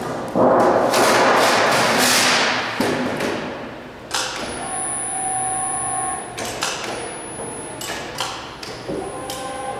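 A large 24-gauge galvanized sheet-metal panel rumbling and wobbling as it is lifted and flipped over by hand. It is then laid down and slid across the folder's table with sharp metal knocks and a steady high scraping whine.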